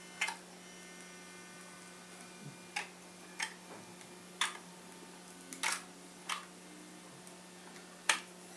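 A steady electrical hum with about seven sharp clicks and taps scattered through it, like small plastic parts and components being handled and fitted.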